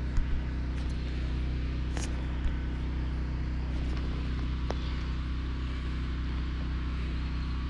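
A steady low hum that holds one pitch, with a few faint clicks.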